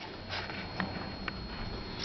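Steady hum inside an elevator car, with three faint clicks about half a second apart.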